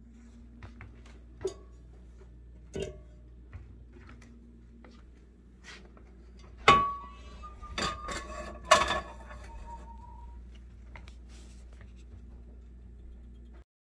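Red enamelled cast-iron skillet being handled and set down on an electric stove: scattered knocks and clicks, then two loud clanks that ring briefly, about seven and nine seconds in, over a steady low hum.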